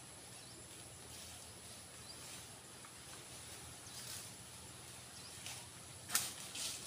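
Steady high-pitched insect drone over quiet outdoor background, with brief rustles about four seconds in and a sharper snap just after six seconds.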